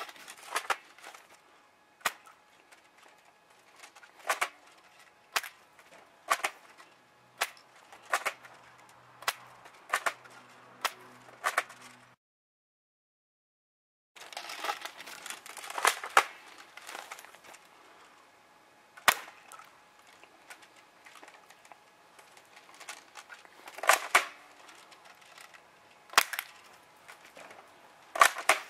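AK airsoft rifle shots: sharp cracks, about one a second. The sound cuts out completely for about two seconds near the middle, then the cracks resume.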